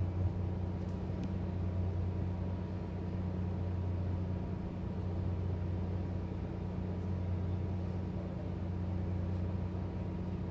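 Docked fishing vessel's diesel machinery running with a steady, even low hum.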